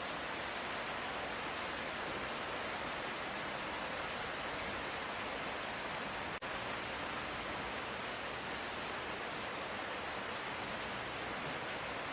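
Steady light rain: an even, unbroken hiss, with a momentary dip in level a little past halfway.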